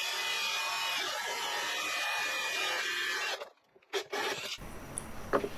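Steady rushing background noise that cuts off about three and a half seconds in; after a brief gap a quieter, lower background follows.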